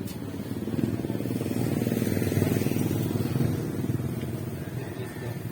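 A small motorcycle engine running: a steady, fast-pulsing low rumble that swells a little in the middle.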